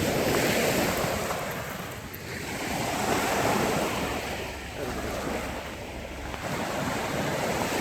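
Wind buffeting the microphone, a whooshing rumble that swells and eases in slow gusts.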